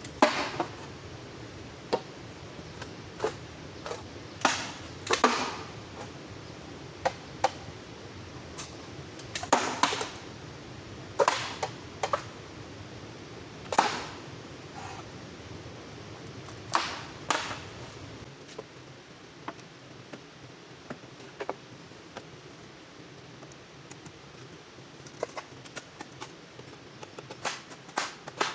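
Sharp strikes at uneven intervals, mostly one to two seconds apart and some in quick pairs, over a steady hiss of rain. After about 18 seconds the strikes thin out to fainter taps, with a few louder ones again near the end.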